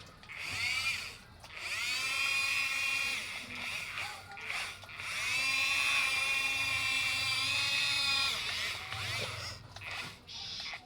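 Small electric gear motors of a remote-control toy construction machine whining in spells, pitch swooping up as each run starts, with short stops between runs.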